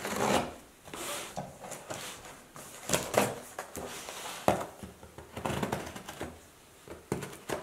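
A knife slitting the packing tape on a cardboard box, with irregular scratchy strokes and clicks as the blade drags across the cardboard and the tape is pulled back.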